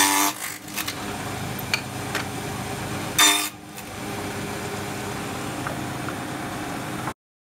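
Table saw running steadily, its blade cutting box-joint notches through an upright spruce board twice, about three seconds apart, each cut a short loud burst over the motor's hum. The sound cuts off suddenly near the end.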